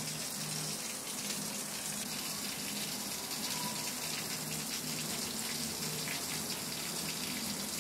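Steady rush of running water, pouring or splashing without a break.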